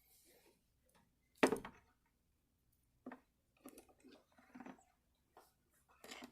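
Scattered clicks and knocks of grease fittings and adapters being handled, with one sharp knock about one and a half seconds in.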